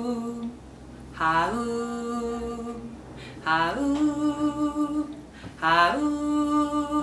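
A woman singing slow, wordless "ha-oom" syllables of a lullaby, three in a row about two seconds apart. Each slides up and settles into a long held note, and the last two are pitched higher than the first.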